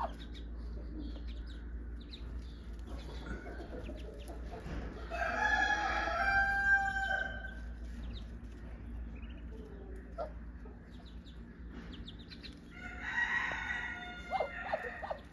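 A farmyard fowl gives two long, loud calls, one about five seconds in and another near the end, over the soft high peeping of muscovy ducklings.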